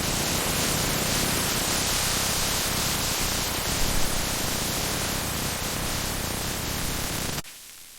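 A loud, steady hissing noise like static, which cuts off abruptly near the end, leaving only a faint hiss.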